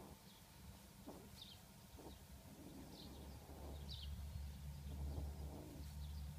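Several faint, short, high-pitched chirps from a small animal, each falling in pitch, about a second apart, over a low steady hum that comes in about halfway.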